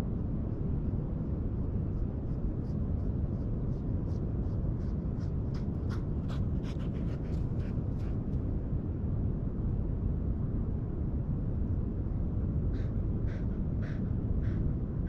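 Steady wind rumble on the microphone. Over it come light, scratchy ticks in two spells, one lasting several seconds early on and a shorter one near the end, as a dog moves about on the sand right beside the microphone.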